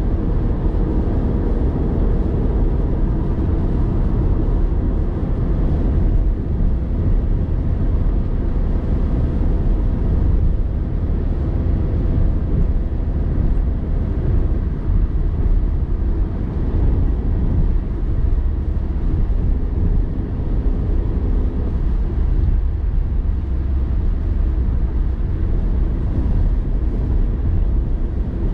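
Steady low rumble of engine and tyre noise inside a moving car's cabin, with a faint engine hum over it.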